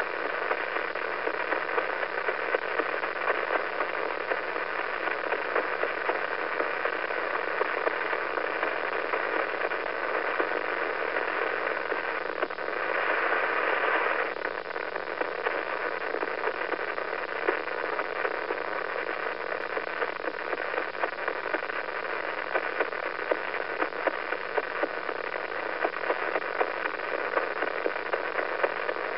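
Radio emission from a pulsar, shifted into audible sound: a steady crackling hiss of static with a faint low hum beneath it, briefly louder for a second or two about halfway through.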